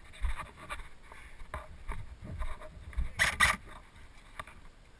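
Irregular rustling and low thumps of someone moving about, with two louder noisy bursts a little past three seconds in.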